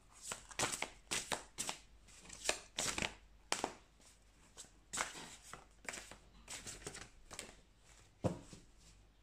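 A deck of reading cards being shuffled by hand, the cards slapping and flicking against each other in quick, irregular clusters, busiest in the first few seconds, with one sharper snap near the end.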